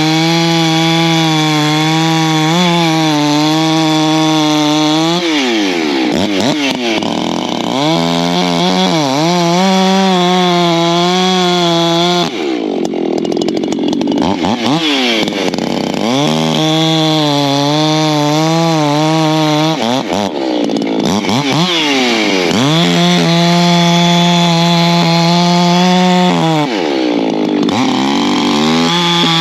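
Ported Echo CS-620 two-stroke chainsaw bucking firewood logs: a string of cuts of a few seconds each, the engine held at a steady high pitch through each cut. Between cuts the pitch drops and revs back up.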